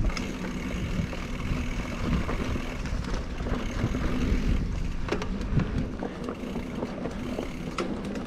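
Mountain bike riding along a dirt forest trail: a steady rumble of tyres rolling over the ground, broken by many small clicks and rattles of the bike over bumps.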